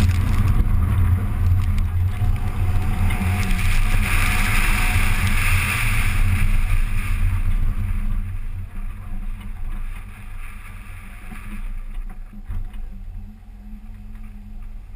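Acura Integra Type R's four-cylinder engine running hard on a dirt rallycross course, with wind noise on the hood-mounted camera. It gets quieter from about halfway through as the car slows at the finish.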